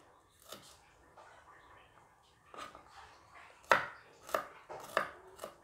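Kitchen knife slicing shallots on a round wooden cutting board: a few faint knocks at first, then four sharper chops against the board in the second half, about two-thirds of a second apart.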